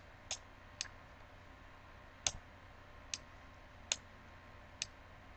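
Six short, sharp clicks, irregularly spaced, from the pointing device used to hand-write on the on-screen whiteboard, over a faint quiet background.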